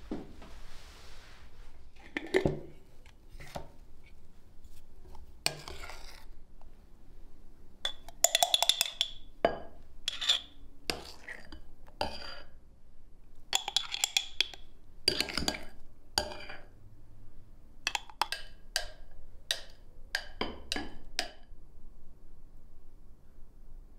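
Metal spoon tapping and scraping against a glass bowl and a glass jar while thick mayonnaise is spooned into the jar: a string of irregular clinks, some with a short glassy ring.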